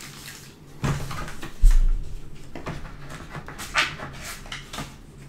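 A plastic gaming keyboard being lifted out of its box and handled: a run of clicks, rustles and knocks, with one heavy thump a little under two seconds in.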